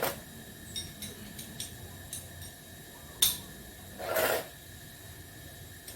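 Metal hand tools clinking and knocking: a few sharp clinks, the loudest about three seconds in, then a short scrape about a second later.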